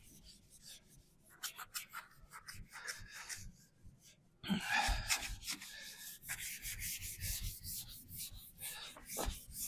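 Hand sanding of primer on a VW T25 van's body panel: quick back-and-forth rubbing strokes of an abrasive pad, faint at first and louder from about halfway in.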